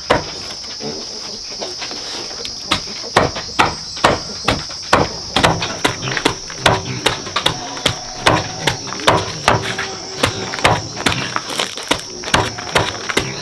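Long knife chopping a rolled bundle of leaves on a wooden chopping block: a steady run of quick, sharp knocks of blade through leaf onto wood, sparse at first and then about two to three a second. A steady high insect drone runs underneath.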